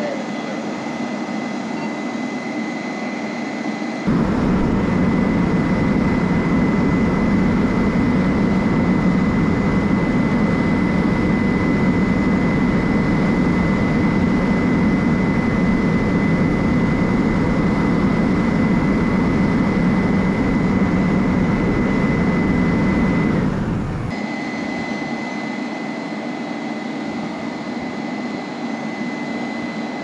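Aerial ladder fire truck's diesel engine running steadily up close, coming in loud about four seconds in and dropping back to a quieter engine hum about twenty seconds later. A thin, steady high whine runs under it the whole time.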